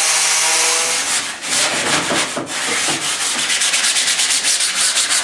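An angle grinder whines steadily along the ski's steel edge, then stops about a second in. A hand sanding block follows, rubbed back and forth along the ski's freshly trimmed fiberglass edge in quick, even strokes that speed up toward the end.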